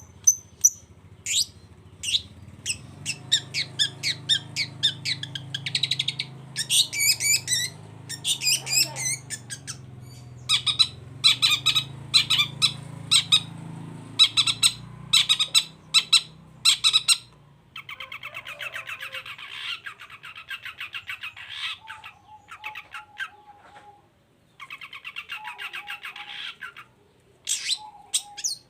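Long-tailed shrike singing: a loud string of harsh, rasping call notes mixed with fast chattering trills. A faint low hum sits under the first half.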